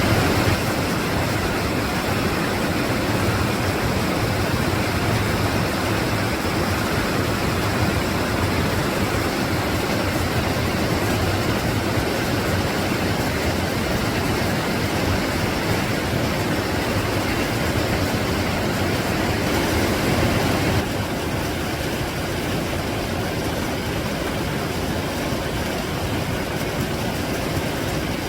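Clear mountain stream rushing steadily over rocks. About twenty seconds in, the rush drops a little in loudness and depth.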